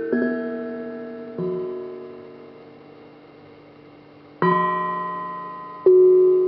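Hamon, an iron folk instrument, played note by note. Four notes, each struck sharply and left ringing as it slowly fades. After the second note it rings on alone for about three seconds, then two more notes follow close together.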